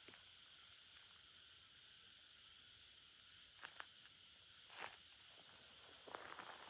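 Near silence: faint night insects chirring steadily in the brush, with a couple of soft ticks and, near the end, light rustling of footsteps through grass.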